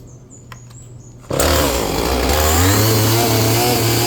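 A Husqvarna 450e two-stroke chainsaw comes in suddenly and loudly about a second in, then runs with its engine speed stepping up partway through. The saw is being tried out with a freshly fitted bar and chain.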